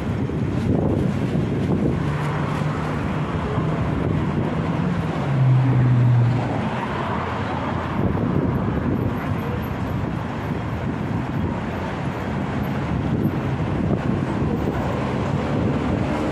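City street ambience: traffic running on the road beside the pavement, with wind on the microphone. A low engine hum swells to its loudest about five to six seconds in.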